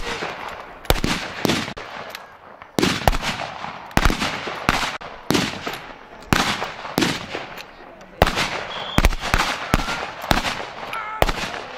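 Irregular gunfire: many single shots, roughly two a second and unevenly spaced, each with a short echo.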